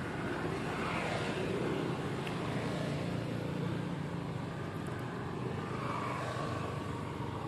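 Steady low engine rumble, a little louder in the first half.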